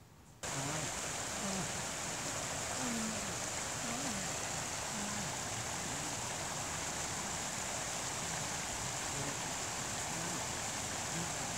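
Small stream running over little falls: a steady rush of water that starts abruptly about half a second in.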